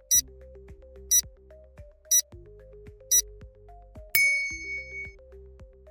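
Quiz countdown sound effects over light background music: a sharp high tick once a second, four times, then a bright bell-like chime about four seconds in that rings for about a second, marking the end of the guessing time.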